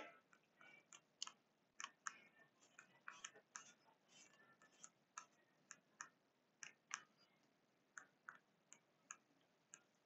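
Near silence broken by faint, irregular button clicks, roughly two a second, as a gym interval timer is set from its remote.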